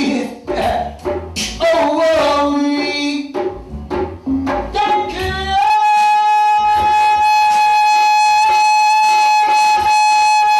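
Male reggae vocalist singing live over a backing track with a bass beat, then from about halfway holding one long, steady high note.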